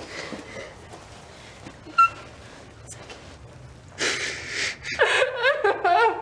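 A person crying in grief: shaky, sniffling breaths, then a loud gasping sob about four seconds in and wavering sobbing cries near the end.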